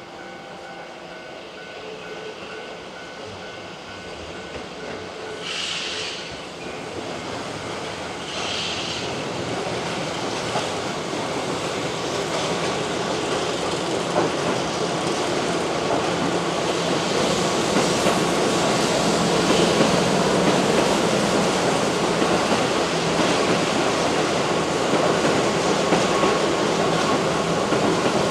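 Keihan 2200 series electric train running over curved track, its wheel-and-rail noise growing steadily louder. Two short high-pitched wheel squeals come a few seconds in.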